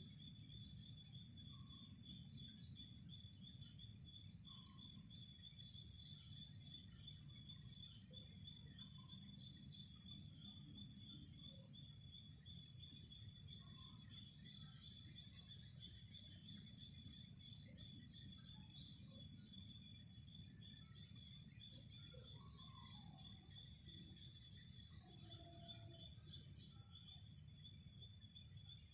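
Night insect chorus: crickets trilling in a steady, high-pitched drone, with a short double chirp recurring every few seconds. Underneath runs a faint low rumble.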